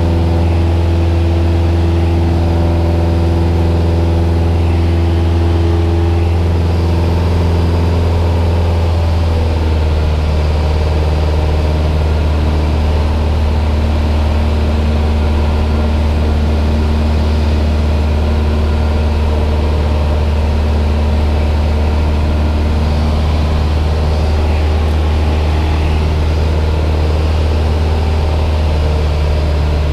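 Cessna 172M's four-cylinder Lycoming O-320 engine and propeller heard from inside the cabin in flight: a steady drone whose note changes about ten seconds in.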